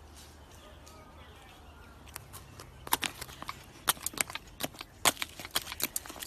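A wombat chewing a biscuit: crisp, irregular crunches that start about two seconds in and come thick and fast.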